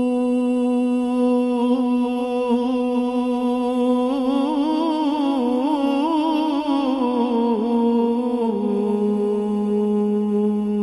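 Devotional Sufi singing without words: a man's voice holding a long hummed note, breaking into a wavering, ornamented run in the middle, then settling onto a slightly lower held note near the end.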